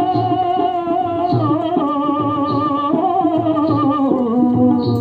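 A Hindi song plays: a long, wavering melody line slides between held notes over a steady drum beat.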